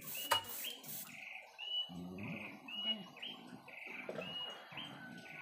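An airbrush spraying paint in a few short spurts of hiss during the first second. Under it, a small animal repeats a short chirping call about twice a second.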